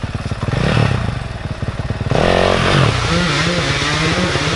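Dirt bike engine revving in bursts, the revs climbing twice, then holding a steadier, wavering pitch near the end.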